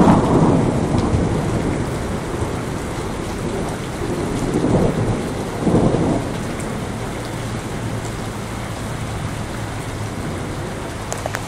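Heavy downpour of rain hitting and splashing on parking-lot asphalt, a steady dense hiss with a few louder swells.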